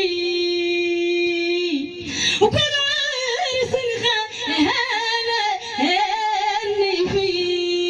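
A woman singing solo into a microphone: a long held note at the start, then wavering, ornamented phrases, and another long held note near the end.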